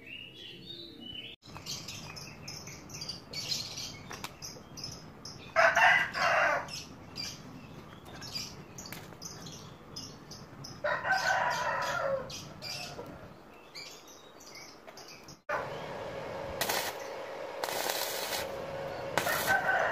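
Roosters crowing twice, about six and eleven seconds in, over light clicking. In the last few seconds an inverter arc welder's arc hums steadily, with loud bursts of crackle as it is struck on the steel tank.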